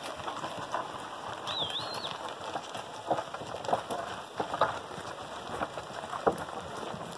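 Pack mules' hooves knocking irregularly on a rough mountain trail. A short warbling whistle comes about a second and a half in.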